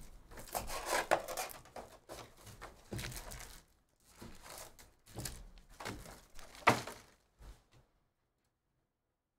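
Crinkling cellophane shrink wrap being torn off a cardboard trading-card hobby box, then the box opened and its foil packs handled. There is a sharp knock about two-thirds of the way through.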